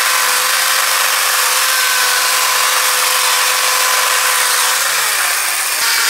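Makita battery-powered electric chainsaw running at speed and cutting into a log: a steady motor whine over the chain's hiss, easing slightly about five seconds in. The chain is running kind of smoother on the freshly dressed bar.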